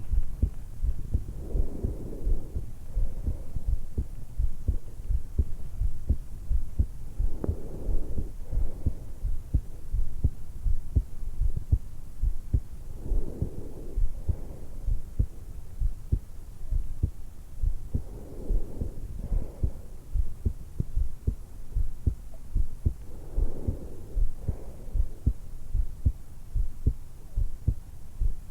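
Heartbeat and breathing picked up by a stethoscope microphone pressed to the hollow at the base of a woman's throat: a steady run of low thuds, with a breath drawn in and let out about every five to six seconds. It is her resting heartbeat just after waking, lying on her back.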